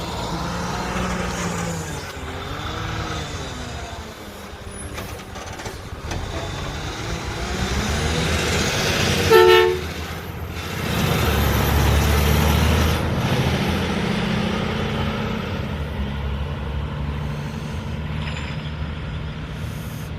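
Garbage truck's diesel engine running, with one short horn toot about nine seconds in; just after it the engine grows louder for a couple of seconds as the truck pulls away.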